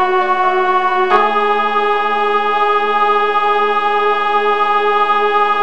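Computer notation-software (MIDI) playback of a choral piece's closing bars, in sustained organ-like chord tones. About a second in a new chord sounds and is held as the final fermata chord.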